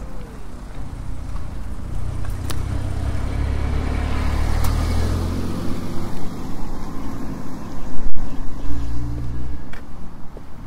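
A car passing by, its engine hum swelling over a few seconds and fading, with a shorter hum again near the end. A brief thump about eight seconds in.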